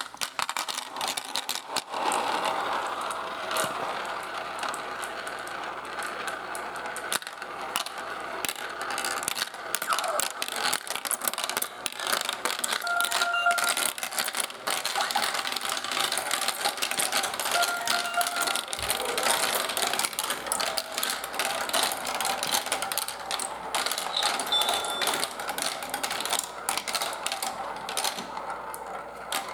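Marbles rolling and clattering down a marble run, a continuous rattle of many small clicks with a few brief ringing tones now and then.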